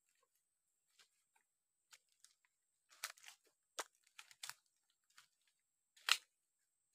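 Footsteps crunching through dry fallen leaves and twigs, in uneven steps, with a cluster of crackles around the middle and the loudest crunch about six seconds in.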